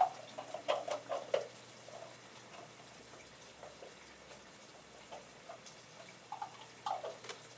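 A few light knocks and clicks from a lidded container holding peeled-end garlic cloves as the lid is worked on, in two short clusters, one just after the start and one near the end, over a faint steady hiss.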